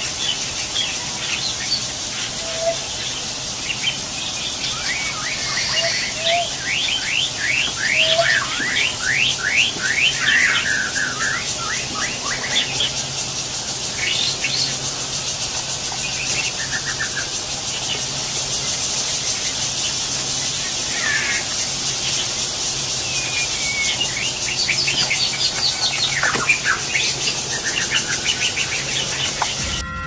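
Several birds calling over a steady high insect drone: short low notes repeated every two or three seconds in the first third, a quick series of rising chirps at about three a second around a third of the way in, and scattered chirps and short whistles throughout.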